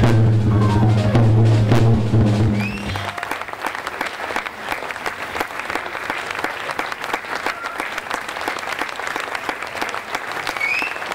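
Jazz piano trio of grand piano, double bass and drum kit ending a piece on a held final chord. About three seconds in, the music stops and audience applause takes over, steady to the end.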